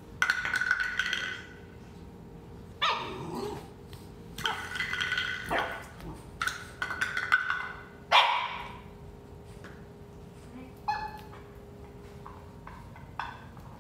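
Four-month-old boxer puppy barking, about eight barks and yips with pauses between them, some drawn out and some short.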